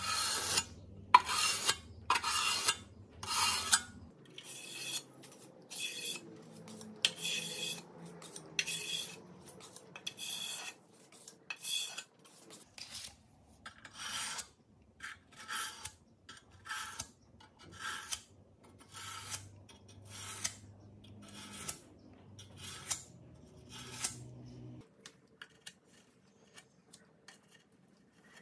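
Steel putty knife scraping and spreading filler putty over a painted metal surface in repeated rasping strokes, about one a second, which turn faint near the end.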